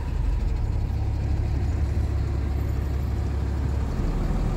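Converted Mercedes truck's engine running slowly in stop-and-go traffic, heard from inside the cab as a steady low drone that shifts lower about four seconds in.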